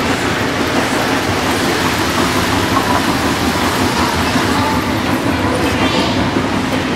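Electric model trains running past close by, a steady rattle of wheels on the track.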